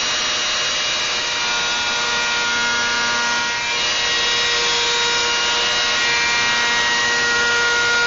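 Table-mounted router spinning a bearing-guided bead bit, cutting a decorative bead along the bottom edge of a wooden skirt board as it is fed along the fence. A steady motor whine runs under an even cutting hiss.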